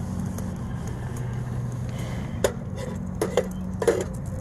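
Steady low wind rumble, with four sharp metallic clinks in the second half, about two and a half seconds in and again over the following second and a half, from the metal cook pot and windscreen on a solid-fuel camp stove.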